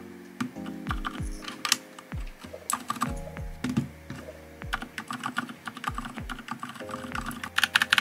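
Keystrokes on a NuPhy Halo75 mechanical keyboard fitted with a few TTC Silent Bluish White switches: scattered single key presses, then a quick run of denser, louder typing near the end. Background music plays throughout.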